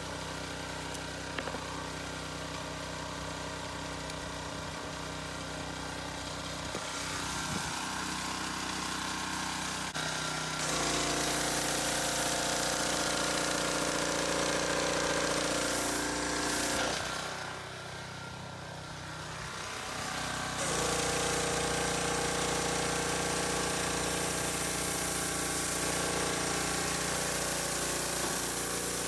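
Engine-driven pressure washer running steadily. About ten seconds in the foam cannon starts spraying, adding a loud hiss and loading the engine; the spray stops for about three seconds, then runs again.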